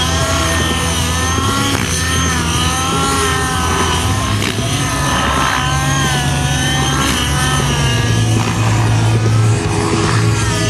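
Radio-controlled model helicopter flying 3D aerobatics: its engine and rotor whine rises and falls in pitch over and over as it flips and hovers. Music with held bass notes plays under it.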